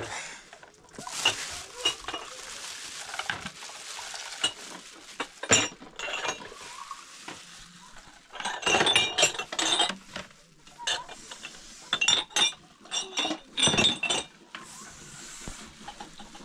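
Cups, glasses and dishes clinking and knocking as they are handled, with a drink poured from a plastic pitcher about a second in. Bursts of clinks come around the middle and again near the end.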